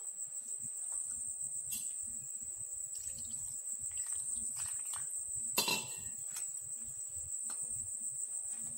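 Steady high-pitched cricket trill in the background, with small clicks and handling noises from a steel bowl and wet cotton cloth as chhena is rinsed with water. A sharper knock comes about five and a half seconds in, the loudest moment.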